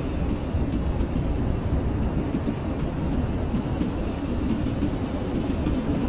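Blizzard wind blowing steadily, a dense low rumbling rush with a fainter hiss above it and a scatter of faint fine ticks.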